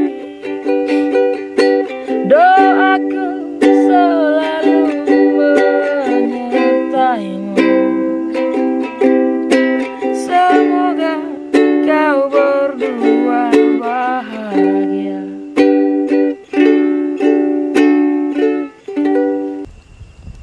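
Ukulele strummed in a steady rhythm, with a man's voice singing the tune along without clear words. The music stops abruptly near the end, leaving faint outdoor noise with a thin steady high tone.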